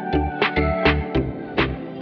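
Background music with a steady electronic beat: low thumps about two and a half times a second under sustained pitched notes.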